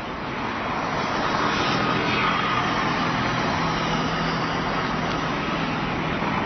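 Street traffic noise: a dense, steady hiss with a low engine hum running under it.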